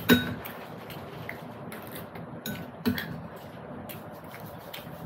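Dishes and cutlery clinking during a meal, with a sharp clink right at the start and another about three seconds in, and fainter clicks between.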